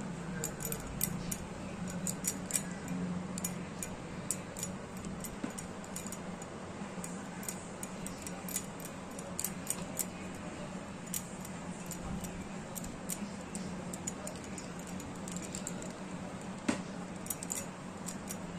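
Cotton towel rubbing and rustling as a small brass idol is dried by hand, with many light metallic clinks and ticks scattered throughout. A steady low hum runs underneath.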